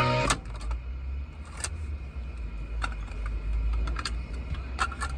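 Cassette music cuts off about a third of a second in. A low, steady rumble from the Suzuki Jimny JA71's engine idling then fills the cab, with scattered small clicks and rattles.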